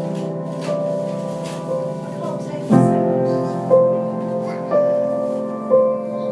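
A family piano played by two people in a lo-fi phone recording. One strikes a slow chord about every four seconds, and the other plays a single-note melody over it, about one note a second.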